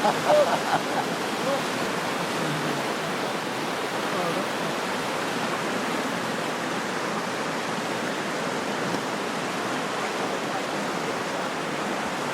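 Waterfall rushing steadily, a constant dense roar of falling water.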